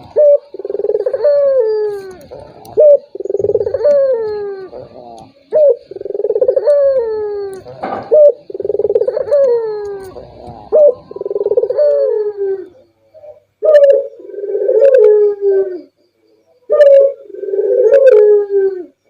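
Puter dove (ringed turtle dove) cooing over and over, each coo a drawn-out low note sliding down in pitch, about one every second and a half. After a short pause about two-thirds in, the coos start with a short, sharp note. It is a lure call for getting other puter doves to coo.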